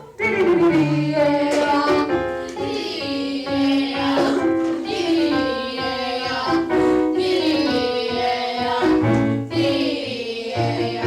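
Music: young voices singing long held notes over an instrumental accompaniment, the pitch changing every second or so.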